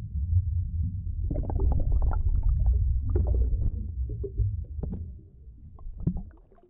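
Muffled underwater sound picked up by a phone held under a swimming pool's surface: a low rumble with many quick crackles and pops from bubbles, fading away near the end.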